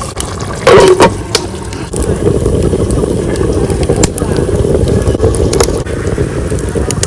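Wood-fired rocket stove burning hard: a steady rushing noise of the fire's draft with scattered crackles from the burning log. A brief loud scrape about a second in.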